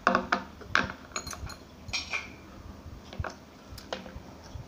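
Chopsticks and a plastic bowl clattering and being set down on a glass tabletop: two sharp knocks near the start, then a scatter of lighter clicks and taps.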